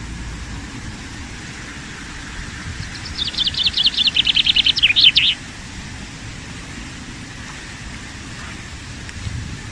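A songbird sings a rapid trill about two seconds long, quick high notes at roughly ten a second ending in a couple of falling notes, over a steady low rumble.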